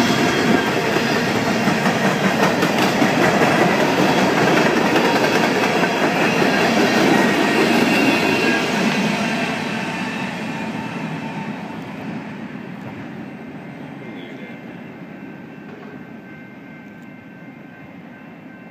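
Freight cars of a BNSF train rolling past, their wheels clattering on the rails. Loud for the first nine seconds or so, then fading steadily as the end of the train moves away.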